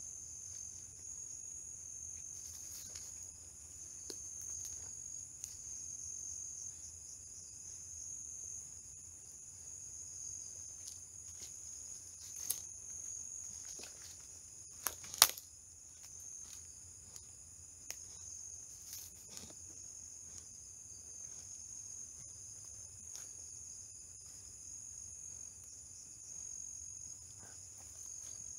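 Steady, high-pitched chorus of night insects such as crickets. A few short sharp clicks or snaps break through it, the loudest about halfway through.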